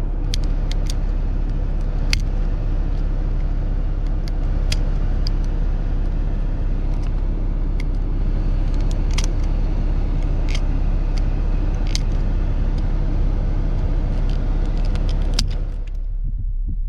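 Scattered sharp clicks and snaps of a plastic pry tool working the shifter console trim of a 4th-gen Acura TL loose, over a steady low rumble in the car's cabin.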